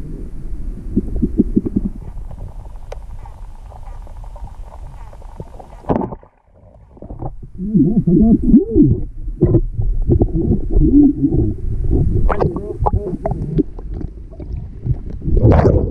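Muffled underwater sound of a snorkeler spearfishing: low rumbling and gurgling bubbles, a sharp knock about six seconds in as the spear is shot, then wavering bubbling. Near the end comes a loud rush of water as he breaks the surface.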